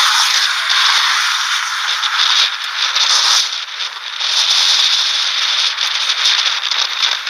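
Strong wind near a large wedge tornado, blowing as a loud, steady rushing hiss with crackling and rattling, briefly easing about halfway through.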